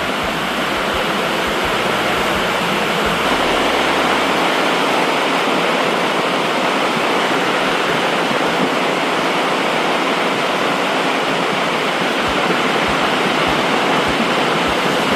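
Heavy rain pouring down steadily, a dense, even rush of noise.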